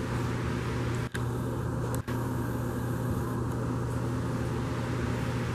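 Steady low mechanical hum with a hiss over it, cutting out briefly twice about a second apart.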